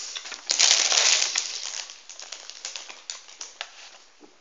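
Clear plastic donut tray being handled: a loud crinkling rustle about half a second in, then a run of light plastic clicks and crackles.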